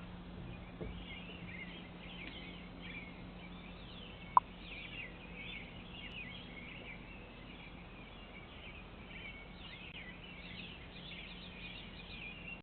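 Birds chirping over and over in the background, heard through a doorbell camera's microphone, with a steady low hum underneath. One sharp click comes about four seconds in.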